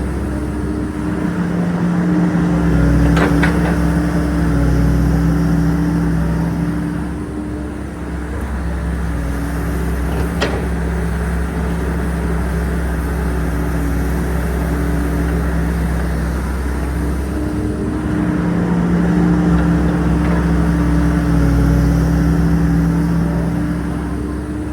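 Excavator's diesel engine running steadily, growing louder for several seconds twice, with two sharp knocks in between.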